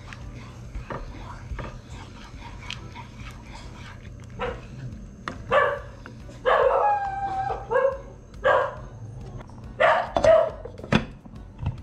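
A dog barking in a run of short barks starting about four seconds in, with one longer, whining bark that falls in pitch in the middle.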